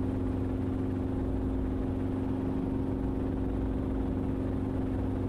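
Enstrom helicopter's engine and rotor droning steadily in the cabin, with an even hum of several fixed tones and no change in pitch or level, as the aircraft descends into a low approach.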